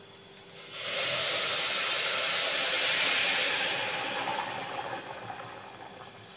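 Hot water poured from a pot into an aluminium pressure cooker onto basmati rice sautéed in ghee. It is a steady pour that starts just under a second in, then trails off over the last couple of seconds.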